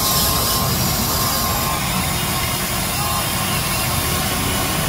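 Huina radio-controlled toy excavator working, a steady mechanical motor noise with a low engine-like rumble as its arm lifts a bucket of mud.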